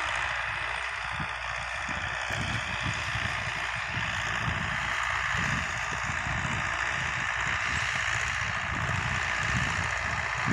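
Tractor engine running steadily in the distance, with wind gusting on the microphone.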